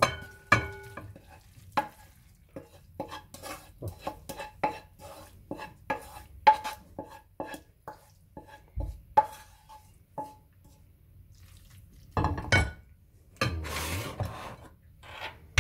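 Wooden spoon knocking and scraping cooked vegetables out of a frying pan into a glass bowl: a quick run of clinks and taps, some leaving the bowl ringing briefly, then a couple of longer scraping, stirring sounds near the end.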